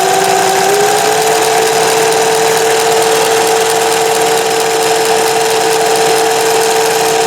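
Singer 411G sewing machine sewing at high speed, driven by a servo motor through a belt reducer: a steady mechanical whine whose pitch rises slightly about a second in, then holds.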